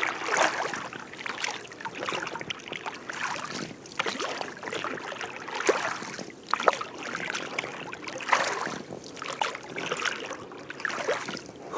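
Oars of a rowboat dipping and pulling through the water, a splash and swirl with each stroke about once a second or a little slower, with a few short squeaks between strokes.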